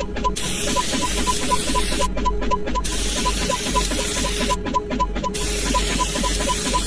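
Looped electronic sound effect: a steady hiss over a low hum, with short high beeps about four times a second. The hiss cuts out briefly about every two and a half seconds as the loop repeats.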